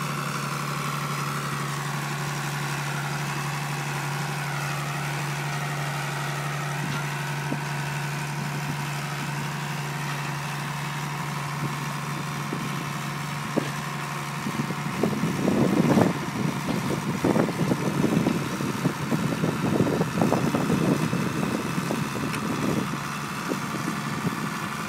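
John Deere 3650 tractor's six-cylinder diesel engine running steadily while ploughing. From a little past halfway, irregular gusty rumbles come over it and are the loudest thing heard.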